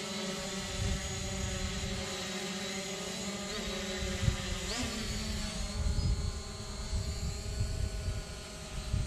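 Hubsan Zino quadcopter's propellers humming steadily in flight, with a brief shift in pitch about five seconds in as it manoeuvres. Wind buffets the microphone with low rumbling, more so in the second half.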